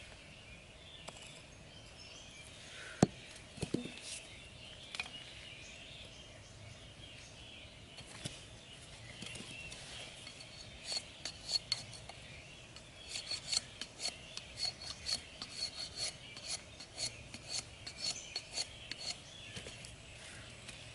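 Knife blade shaving a thin bamboo stick in short scraping strokes, about three a second through the second half, after a single sharp knock about 3 s in.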